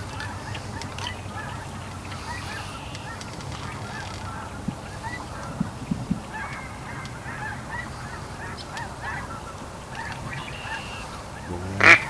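A flock of waterfowl calling, a steady chatter of many short honks and quacks, with a louder burst of calls near the end.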